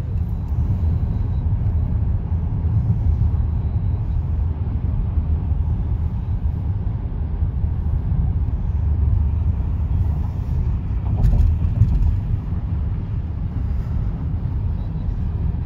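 Road noise of a moving car heard from inside the cabin: a steady low rumble of tyres and engine, with a couple of brief knocks about eleven seconds in.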